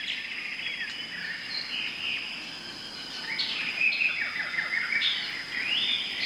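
Birds chirping and calling, with several overlapping short chirps, trills and sliding notes, over a faint steady high whine.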